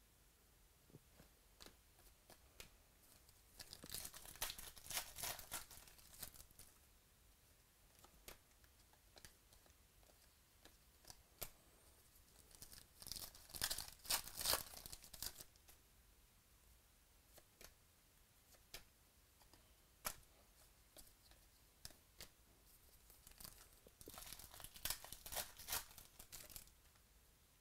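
Foil trading-card packs being torn open and their wrappers crinkled by hand, in three bouts of crackling: around four seconds in, near the middle and near the end. Faint scattered clicks fall between the bouts.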